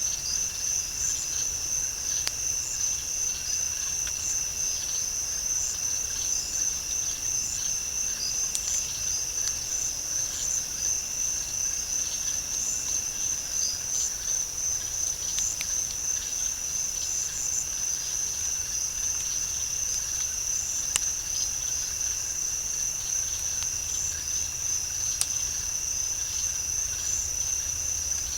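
Night insect chorus of crickets: a steady, high-pitched pulsing trill, with a weaker, lower trill beneath it. A few faint, sharp ticks stand out, the clearest about 21 and 25 seconds in.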